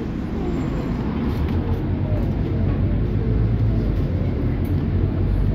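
Scania city bus driving, heard from inside the passenger cabin: a steady low engine and road rumble that grows a little louder after about two seconds.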